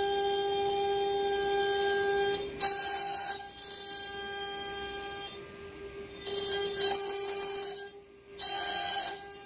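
Axiom CNC router's spindle running with a steady high whine as a small end mill cuts letters into a wooden sign board. Three louder, hissing stretches of cutting break in, the longest a little before the end.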